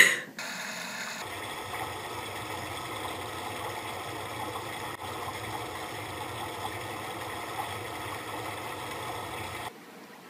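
A puppy gives a brief, loud squeak at the very start, then a steady machine-like hum runs on and cuts off suddenly near the end.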